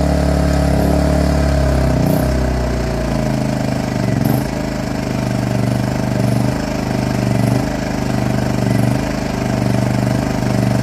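WEN inverter generator's small single-cylinder four-stroke engine running; about two seconds in its pitch drops as it settles to the lower eco-mode speed, then it holds steady with slight swells in level. It is running much smoother on a new NGK spark plug but still not quite right, which the owner thinks may be dirt in the carburetor.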